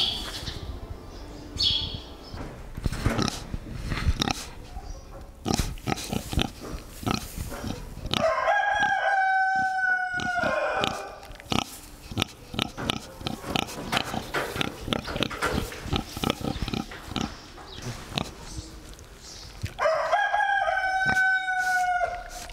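Pot-bellied pig snuffling and rooting at close range, with irregular short snorts and clicks. Twice, about a third of the way in and near the end, another farm animal gives a long call of about three seconds.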